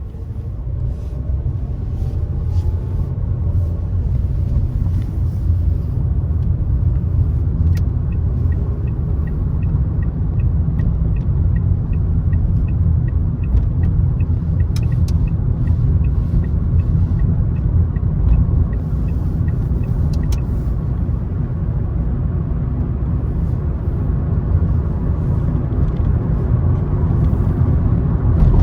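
Car driving on the road: a steady low rumble of engine and tyres that grows louder over the first few seconds. Through the middle of the stretch there is a light, regular ticking about twice a second.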